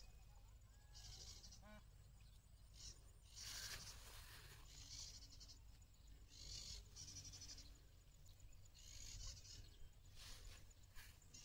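Near silence: a faint outdoor background with short, high-pitched rasping bursts every second or two.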